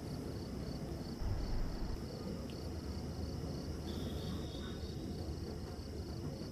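Faint, even high-pitched chirping repeating about five times a second over steady low background noise, with a soft low bump about a second in.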